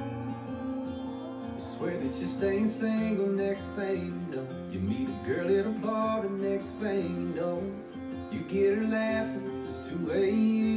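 Background music: acoustic guitar, with a voice singing from about two seconds in.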